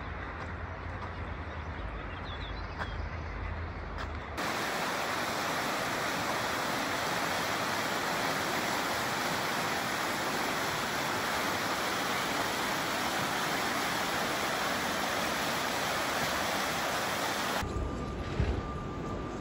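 Fast mountain river rushing over stones, a steady loud rush of whitewater that starts suddenly about four seconds in and cuts off shortly before the end. Before it there is a low rumble, and after it a low rumble with a faint steady whine.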